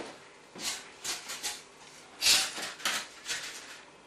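Expanded polystyrene foam pieces being handled: a string of short rubbing and scraping sounds as the cut parts slide against each other, with one louder knock about two seconds in.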